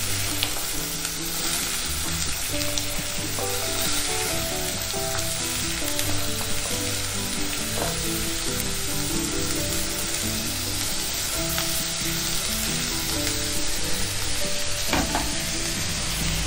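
Chopped onions sizzling in hot coconut oil in a kadai, a steady frying hiss as they are tipped in and spread around.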